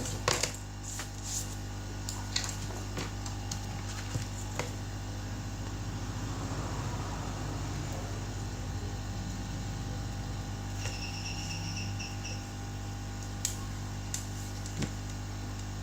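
Steady electrical hum under a few small clicks and taps from handling phone parts during a screen replacement. A brief high tone sounds about eleven seconds in.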